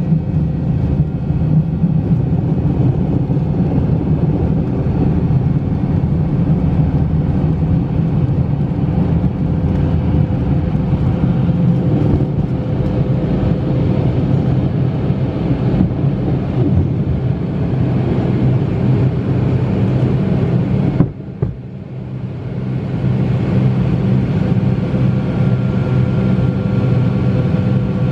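Cabin noise of a McDonnell Douglas MD-88 at takeoff power, its rear-mounted Pratt & Whitney JT8D turbofans running through the takeoff roll, liftoff and initial climb: a loud, steady rumble with a constant hum. A little past two-thirds of the way in, the noise suddenly drops for a second or two and then builds back.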